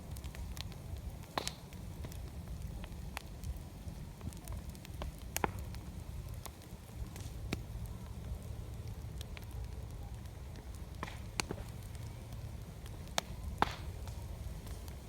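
Wood campfire crackling, with irregular sharp pops scattered through it over a steady low rumble.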